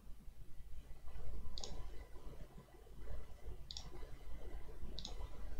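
Three computer mouse clicks, spaced one to two seconds apart, over a low steady background rumble.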